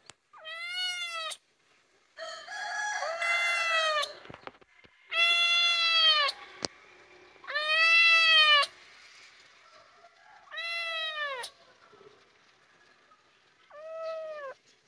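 A young kitten meowing over and over, calling for its mother. There are about seven high meows, each about a second long, each rising and then falling in pitch. The loudest come around the middle.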